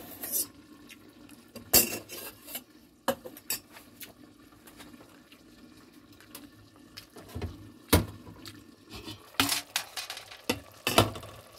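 Pot and lid clattering: a handful of sharp metal knocks, about two seconds in, twice more around three seconds, once about eight seconds in, and a cluster near the end as the lid comes off the pot of boiling beef.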